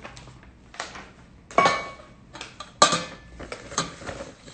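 Handling of a soft acetate sheet and a round metal cake pan on a kitchen counter: two sharp knocks, about a second and a half and about three seconds in, the first with a brief ring, among lighter clicks and rustles.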